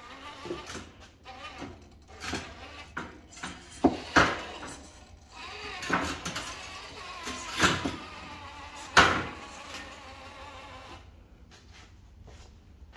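Traxxas TRX-4 RC rock crawler with a Holmes Hobbies 550 motor whining as it crawls, with a string of sharp clunks and knocks as the truck climbs over loose stone slabs and onto a metal ramp. The loudest knocks come about four and nine seconds in.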